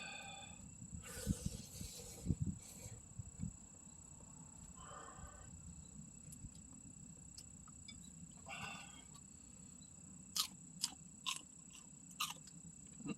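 An insect sings with a steady high-pitched tone throughout. A few sharp clicks and taps come in a cluster early on and again near the end.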